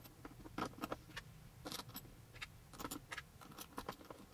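Irregular light clicks and clinks of small steel gearbox parts, washers and the driven bevel gear of an angle grinder, being handled and fitted by hand onto the gearbox cover.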